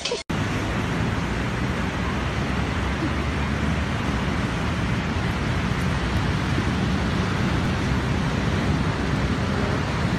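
Beach ambience: a steady, even rush of wind on the microphone mixed with ocean surf. It starts after a brief loud sound that cuts off abruptly at the very start.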